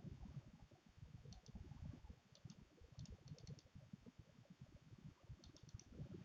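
Near silence: faint room tone with a few soft clicks in small clusters of two to four.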